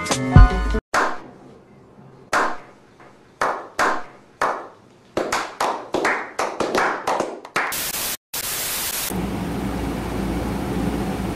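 Hand claps, slow and spaced at first, then coming faster and faster. About eight seconds in they give way to a burst of TV static that drops out for an instant and then runs on as a steady hiss.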